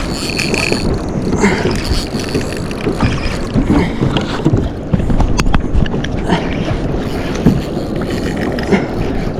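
Wind buffeting the microphone with water sloshing around a fishing kayak, and a couple of sharp clicks about five and a half seconds in.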